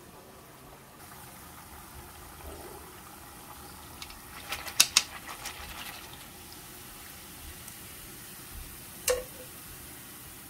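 Batter for bánh rế sesame lattice cakes sizzling in hot frying oil in a wok, a steady hiss. A few sharp clicks come about halfway through, and a single louder knock with a short ring comes near the end.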